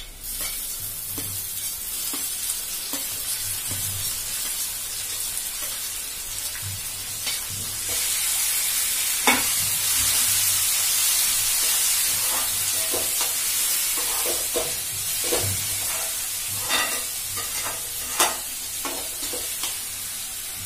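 Chopped tomatoes frying in hot oil with onion and garlic: a steady sizzle that grows louder partway through. A metal slotted spoon stirs, scraping and tapping against the pan every now and then, with a sharp clink at the very start as the tomatoes are scraped in.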